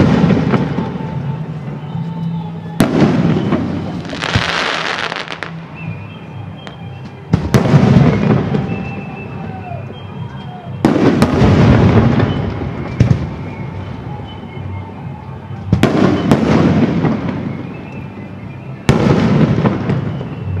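Aerial firework shells bursting overhead: about six heavy booms three to five seconds apart, each rolling away over a second or two. A hissing crackle follows the second boom, about four seconds in.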